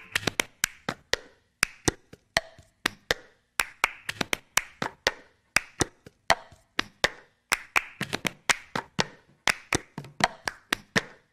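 Hand claps and plastic cups tapped, slapped and knocked on a hard floor in the repeating clap-and-cup rhythm of the cup game, a quick run of sharp strokes, several a second.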